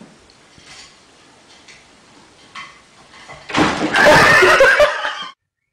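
A clatter about three and a half seconds in, then loud, shrill cries with a wavering pitch for about a second and a half, cut off suddenly.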